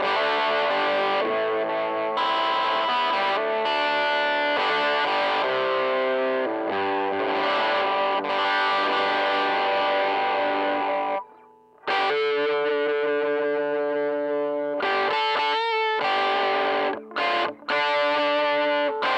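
Electric guitar played through a Joyo crunch distortion pedal into a Fender 5E3 tweed Deluxe-style valve amp, giving a crunchy overdriven tone. Chords and riffs ring on, with a pause of about a second midway and two short breaks near the end.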